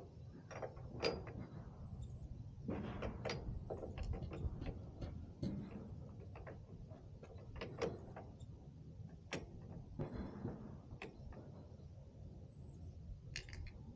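Irregular small clicks and knocks of hand work at a motorcycle handlebar while hand grips are being fitted, over a low rumble.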